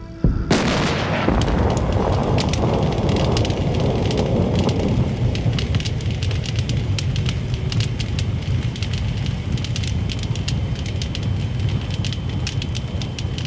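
A large explosion goes off about half a second in, fading over a few seconds into fire burning with a steady low rumble and many sharp crackles.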